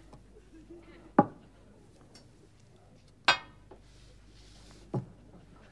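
Stone chess pieces clacking down hard on the chessboard: three sharp knocks, the second and loudest with a short glassy ring.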